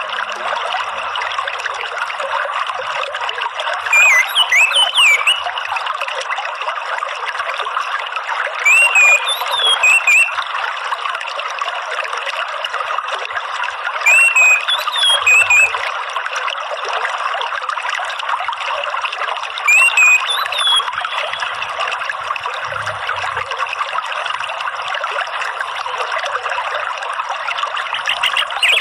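Steady trickling water, with an orange-headed thrush's short whistled, wavering phrases breaking through four times, roughly every five to six seconds.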